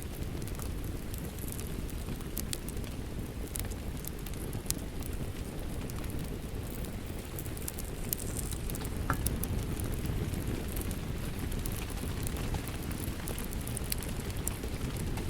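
Steady rain with a wood fire crackling: a constant low rush of rain under scattered sharp crackles and pops.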